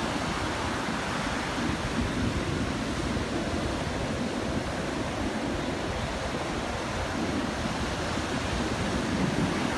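North Sea surf: waves breaking and washing up the beach in a steady rushing wash, swelling a little about two seconds in and again near the end.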